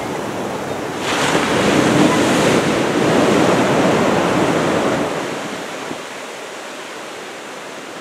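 Heavy surf from an approaching typhoon's swell: a wave breaks about a second in, its wash building and holding for several seconds before fading, over a steady background of surf and wind on the microphone.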